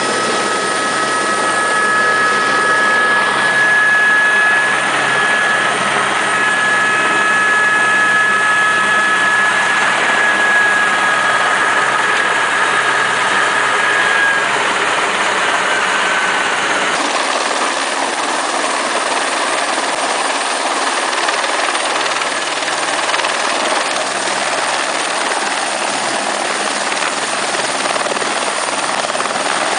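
Turbine helicopter running: a steady engine whine over the rotor and turbine noise. It is heard first from inside the cockpit; after an abrupt change about halfway through it is heard from outside, beside an AS350 Squirrel.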